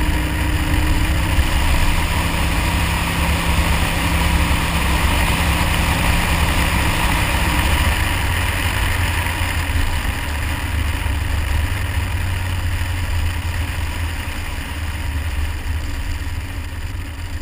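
Car engine running hard as the car slides across a snow-covered ice track, heard through heavy wind rumble on a camera mounted outside the car. A faint steady engine note fades about halfway through, leaving mostly wind and tyre noise.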